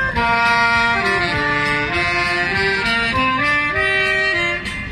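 A soprano saxophone and an alto saxophone playing a melody together, the notes stepping up and down in a steady run, over a backing track from a small loudspeaker.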